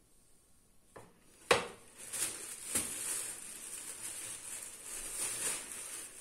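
A plate set down on a stone counter with one sharp clack about a second and a half in, then a plastic bag of semolina crinkling steadily as it is twisted at the neck.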